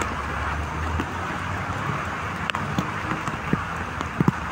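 Rain hitting a car's windshield and roof, heard from inside the car: a steady hiss with scattered sharp drop hits over a low rumble from the car.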